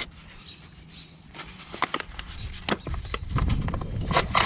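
Hard clicks and knocks of plastic pipe and pump fittings being handled, a few scattered at first, then busier clattering with a dull rumble in the last second or so.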